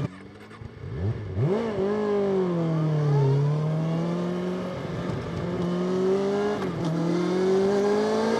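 Kawasaki Ninja ZX-6R inline-four engine and exhaust under riding: the throttle snaps shut at the start and the sound drops away for about a second, then it revs up sharply, eases off, and pulls up in pitch again with a brief dip near the end, as at a gear change.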